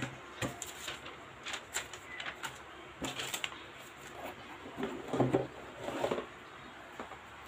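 Cardboard laptop packaging being handled: paper inserts rustle and slide out of the box, then the cardboard box is shifted and lifted, with scraping and light knocks.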